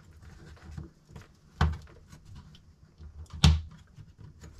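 Thin laser-cut plywood model pieces being handled and pressed together, with small clicks and rustling. Two sharp wooden knocks stand out, one about one and a half seconds in and another about two seconds later.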